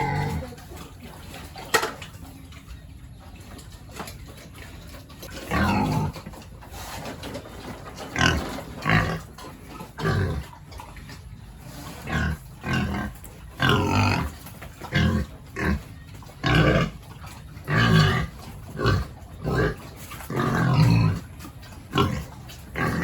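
Pigs making short, repeated calls, sparse at first and then about one a second through the second half, with a single sharp knock near the start.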